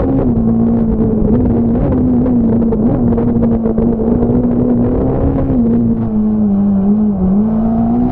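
Fiat Punto S1600 rally car's engine pulling hard at high revs, heard from inside the cockpit, holding a near-steady pitch with small wobbles. The pitch sags a little about six to seven seconds in, then picks up again.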